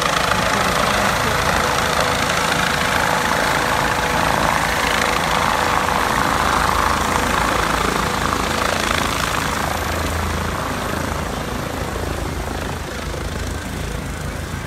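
Air ambulance helicopter descending to land: a loud, steady rush of rotor and turbine noise with a held whine until about eight seconds in. The noise eases somewhat over the last few seconds as the helicopter comes down low.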